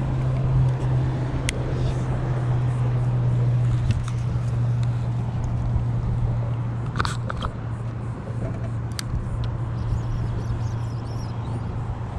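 Steady low engine hum from motor traffic, with a few light clicks about a second and a half in and around seven seconds in.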